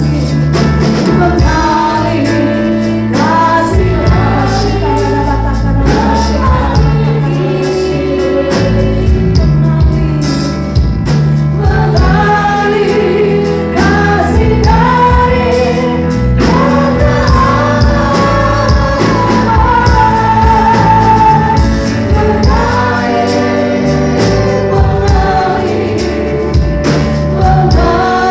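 Church worship band playing a praise song, with drum kit and bass under a group of voices singing the melody.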